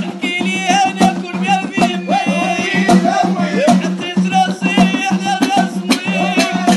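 A man singing a song over backing music, with a steady low note and regular percussion underneath.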